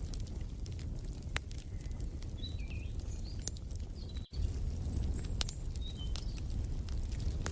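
Wood fire crackling, with irregular sharp pops over a low steady rumble, and a few faint bird chirps in the middle. The sound drops out for an instant a little after four seconds.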